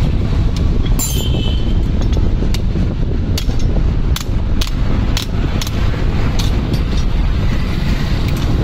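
Starter motor being taken apart by hand: a dozen or so short metallic clicks and knocks as the armature, pinion and housings are handled. Underneath is a steady low rumble.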